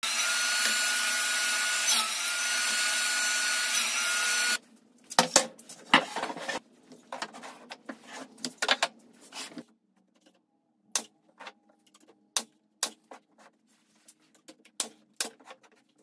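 Table saw running and ripping a pressure-treated deck board, cutting off abruptly about four and a half seconds in. Then wooden boards knock and rub as they are stacked, followed by a pneumatic nail gun firing single sharp shots at irregular intervals.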